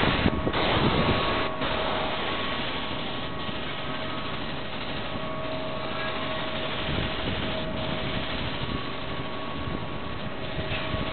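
A machine running steadily with a constant hum over a rushing noise, which swells briefly a few times in the first couple of seconds.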